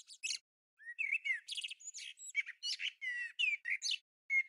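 Small birds chirping and twittering: a quick run of short, high calls and trills with brief pauses between them.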